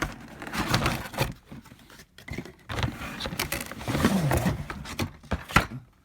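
Cardboard toy packaging being handled and opened by hand: irregular rustling and scraping, with a sharp knock near the end.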